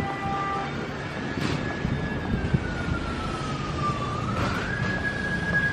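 A motorbike's siren wailing in one slow, drawn-out tone. It sinks gradually, rises again about four seconds in and holds, over a low traffic rumble.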